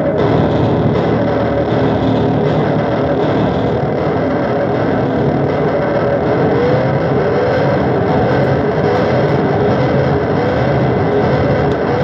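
Noise music: a dense, steady, loud wall of noise, with wavering tones that rise again and again in the middle register during the second half.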